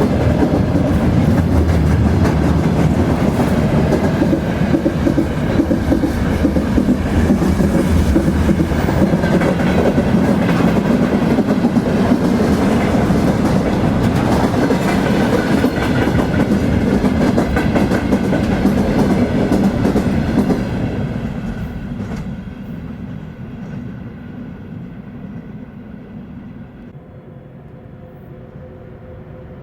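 Freight train rolling along the track, a dense rumble with clickety-clack from the wheels. About two thirds of the way through it fades to a much quieter rumble.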